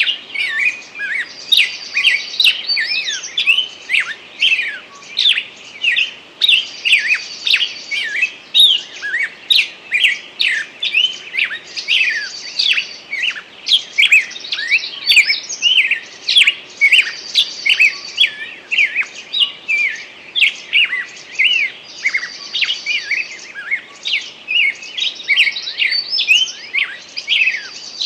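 Forest songbirds singing: a dense run of quick chirps and whistled notes, with a short high trill that comes back about every five seconds.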